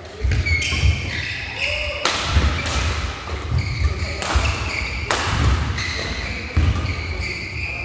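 Badminton doubles rally: several sharp racket-on-shuttlecock hits a second or two apart, with feet thudding and shoes squeaking on the court floor.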